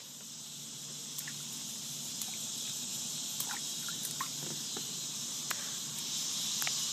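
Steady high-pitched chorus of crickets, with a few faint short ticks scattered through it.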